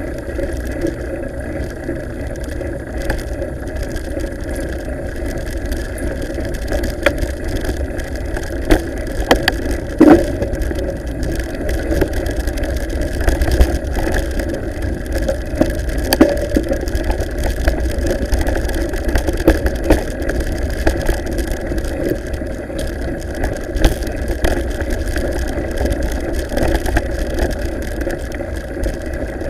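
Wind rumble and the jolting rattle of a mountain bike's mounted action camera riding over a rough cobbled gravel track, steady throughout, with short knocks from bumps in the track, the strongest about ten seconds in.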